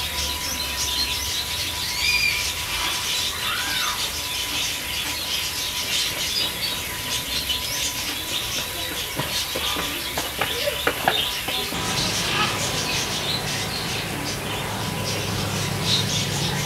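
Outdoor ambience full of many small birds chirping and calling, with a few short gliding calls among them. A faint steady high tone runs underneath.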